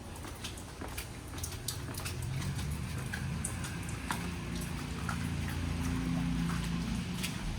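Footsteps on wet pavement, with the low steady drone of distant motors, the leaf blowers clearing storm debris, growing in about two seconds in.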